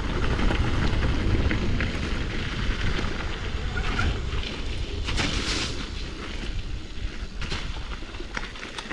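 Mountain bike riding down a rough trail: wind buffeting the microphone over the rumble of tyres on dirt, with scattered clicks and rattles and a brief hiss about five seconds in.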